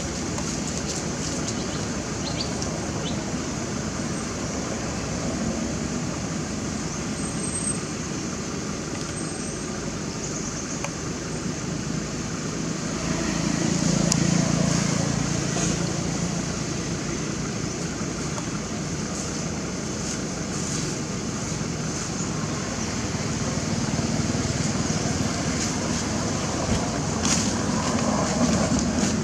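Steady outdoor background noise, a low rumble with hiss, like distant traffic or wind. It swells briefly about halfway through.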